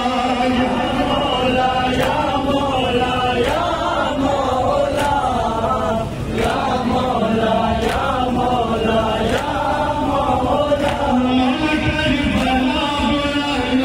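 A group of men chanting a nauha (Shia lament) together in unison. Sharp slaps of chest-beating matam fall in time with it, about one every second and a half.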